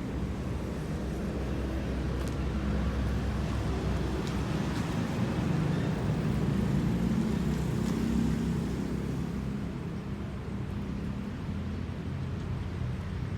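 Diesel engine of an excavator working, a steady low drone that rises for a few seconds in the middle, as if under load, and then eases back.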